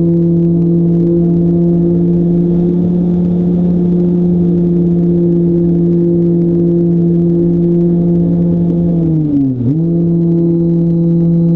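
Radio-controlled plane's motor and propeller running with a steady pitched drone, heard from on board. About nine and a half seconds in the pitch drops sharply and comes straight back up, as the throttle is briefly cut and reopened.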